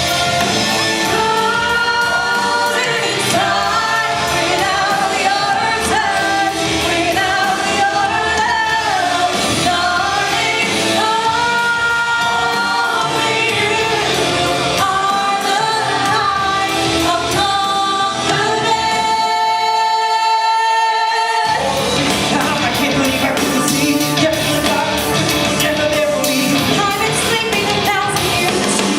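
Loud pop-rock show music with singing over a full band. About two-thirds of the way through, the bass and drums drop out for a couple of seconds under a held sung note, then the full band comes back in.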